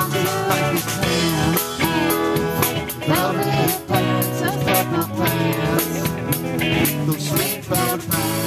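Live band playing a song: drum kit keeping a steady beat under electric and acoustic guitars, bass and keyboard, with a woman singing.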